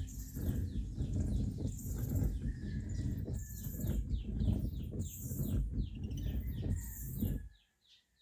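Ford Everest windscreen wipers running with the wiper mechanism squeaking: rapid short chirps, each falling in pitch, over a low rumble, with a hissing sweep about every second and a half. It all cuts off about seven and a half seconds in.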